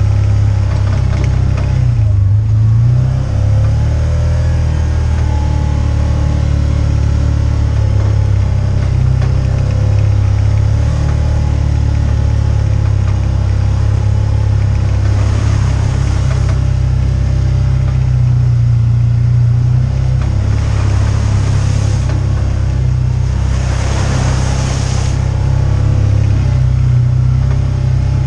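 Side-by-side UTV engine running steadily while driving, with a few short bursts of hissing noise about halfway through and again near the end.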